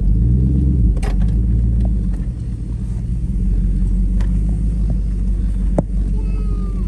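GMC Yukon's engine running low as the SUV crawls along a dirt trail, heard from inside the cabin. A few sharp knocks and rattles from the body, about a second in, at about four seconds and near six seconds.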